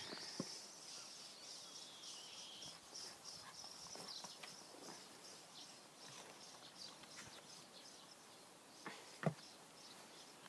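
Faint outdoor ambience of Clumber spaniel puppies scampering on grass, with light rustles and scattered patters of paws, over high, thin chirping that repeats throughout. A single sharp knock sounds about nine seconds in.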